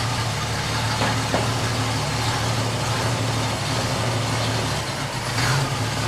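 Ford 200 straight-six engine with Sniper EFI idling steadily with a slight burble, while the intake area is sprayed to find a vacuum leak. A short hiss comes near the end.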